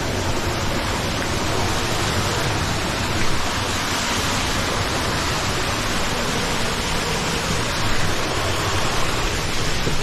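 Steady rush of a mountain-stream waterfall, an even hiss of falling water that does not let up.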